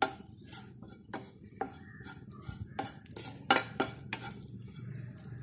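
Wooden spatula stirring and scraping grated coconut as it dry-roasts in a frying pan: a run of irregular scrapes against the pan.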